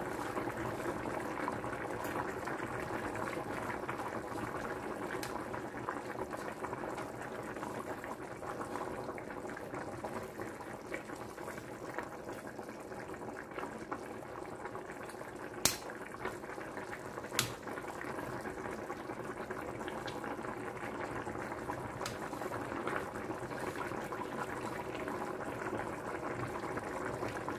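Tinola, a chicken soup, boiling steadily in a stainless steel pot, with a continuous bubbling simmer while a metal ladle skims off the fat. Two sharp metal clinks come just past the middle.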